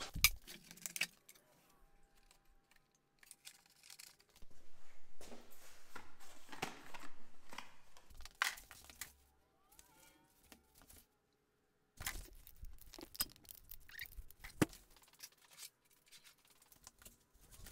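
Handling noise in a small garage: scattered clicks, knocks and rustling of a person moving about with the camera and gear. There is a run of pulsing sound a few seconds in and a few sharp knocks later on.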